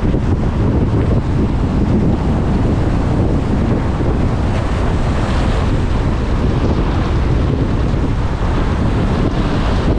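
Steady wind rushing over the microphone of a camera mounted on a moving car, mixed with tyre noise on a wet road.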